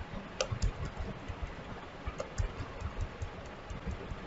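Computer keyboard keys pressed in quick, irregular succession, a run of light clicks, over a faint steady hiss.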